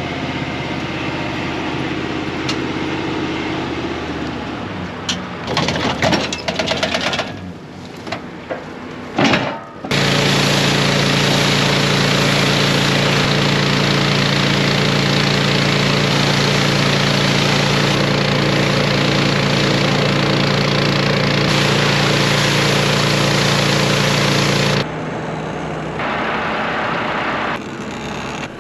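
A heavy farm machine's engine running steadily, with a few clicks and knocks. About ten seconds in it jumps suddenly to a much louder, steady high-throttle run that holds for about fifteen seconds, then drops back to a lower idle.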